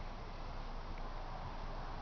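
Steady faint background hiss with a low rumble and no distinct event.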